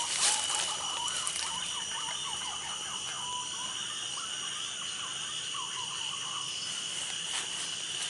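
Steady high-pitched drone of forest insects, with faint short falling bird whistles through the first few seconds and again around six seconds in. There is a sharp click just after the start.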